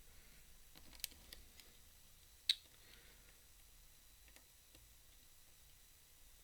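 Faint scattered metal ticks and clicks of a low hook lock pick pushing on the sliders inside a Mindy slider padlock. A sharper click comes about two and a half seconds in, and a lighter one about a second in.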